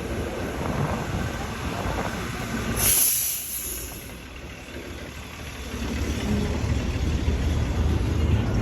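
Low vehicle rumble with a short, loud burst of air hiss about three seconds in. The rumble drops away after the hiss and builds up again from about six seconds.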